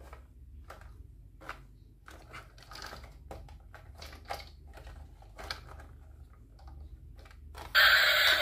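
Light clicks and knocks of a plastic toy bus being handled and turned over. Near the end the battery-powered toy bus is switched on and its loud electronic sound starts suddenly from its small speaker.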